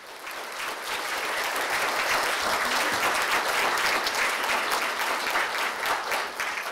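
Audience applauding, building over the first second, holding steady, and thinning toward the end.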